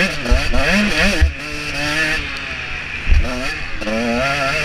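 KTM 125 SX's single-cylinder two-stroke engine being ridden hard on a motocross track, its revs climbing and falling with the throttle. The revs drop off about a second in and pick up again about three seconds in, with heavy low thumps near both points.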